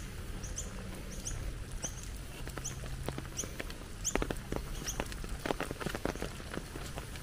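A small bird's high, squeaky chirps repeating about every two-thirds of a second, stopping about five seconds in. From about four seconds in, water drops patter on wet leaves and ground, growing busier toward the end.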